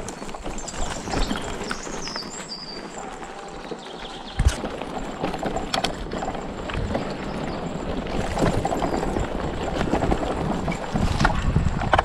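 Hardtail e-mountain bike rolling down a dirt singletrack: tyres crunching over soil and roots, with a constant clatter of knocks and clicks from the unsuspended rear end and drivetrain, and one sharp knock about four and a half seconds in. A low rumble grows louder toward the end as the bike picks up speed.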